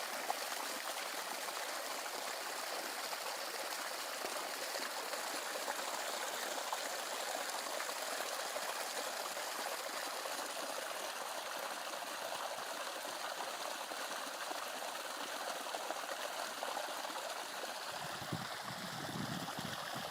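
Water running steadily in a small stream, an even rushing hiss, with a low rumble coming in near the end.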